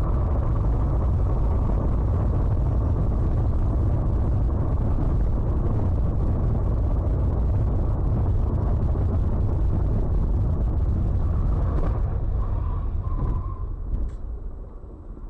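Steady low rumble of a vehicle on the move, from road and engine noise, easing off in the last few seconds with a single faint knock near the end.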